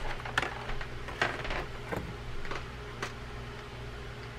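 Light, irregular clicking from the star drag's click washer on a Daiwa Saltist 30HA baitcasting reel as the drag is tightened by hand, about seven clicks over a faint steady low hum.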